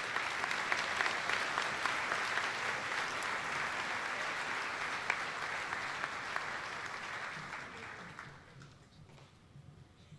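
Audience applauding, tapering off and dying away about eight seconds in.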